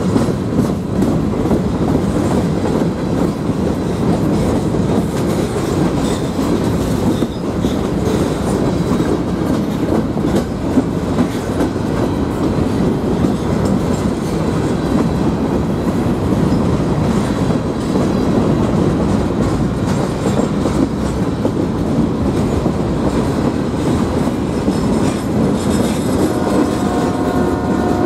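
Covered hopper cars of a freight train rolling past close by: steady loud rumble of steel wheels on rail with clickety-clack over the rail joints. Near the end a steady pitched tone with several notes comes in over the rumble.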